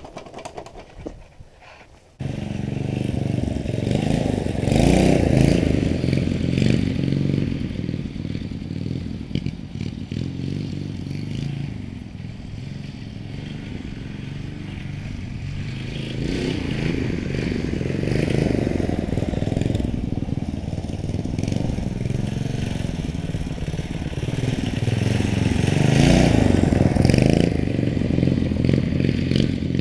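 Mini bike's 212cc single-cylinder engine running under riding load, revving up and down with rattling from the chassis. It comes in suddenly about two seconds in and swells three times.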